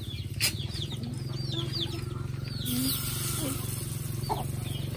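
Repeated short, falling peeps of chicks over a steady low motor hum. About halfway through, a higher frying hiss rises as batter goes into the hot oil in the wok.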